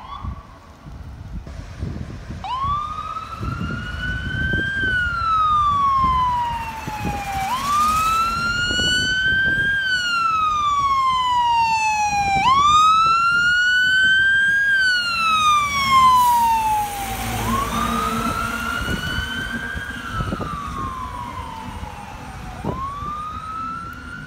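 Fire engine siren in wail mode, its pitch sliding slowly up and down about every five seconds, over the truck's engine and road noise as it passes, loudest near the middle.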